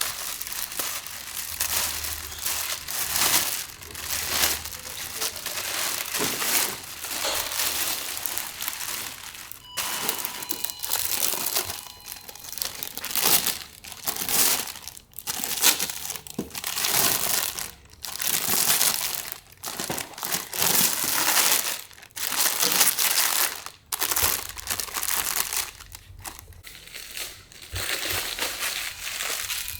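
Packing material being pulled off and crumpled, crinkling and rustling in repeated bursts of a second or two each.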